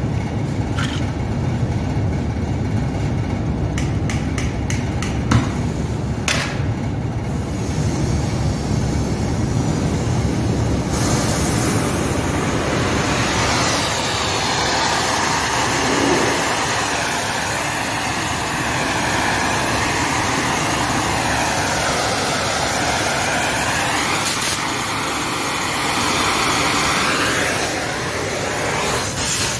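Steady low drone of shop machinery, with a few sharp clicks in the first seven seconds. From about eleven seconds a loud hiss joins in: an oxy-acetylene torch burning.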